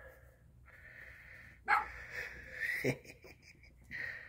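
Puppies yipping and barking as they play-fight, a series of short high calls with the loudest about a second and a half in.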